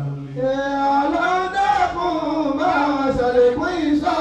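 A man's voice chanting a prayer in long, drawn-out sung phrases through a microphone, the pitch rising and falling.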